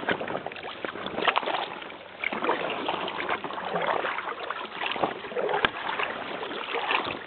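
Paddling an inflatable kayak: water splashing and trickling, with many irregular sharp clicks and knocks.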